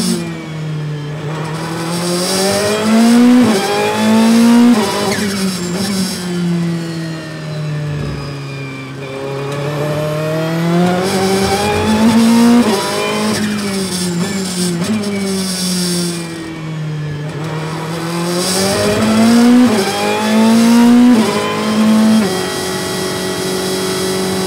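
Ferrari 488 GT Modificata's twin-turbo V8 at race pace, heard from inside the cockpit. The engine climbs in pitch under full throttle with sharp drops at each upshift, then falls away under braking and downshifts, several times over, and holds a steady pitch near the end.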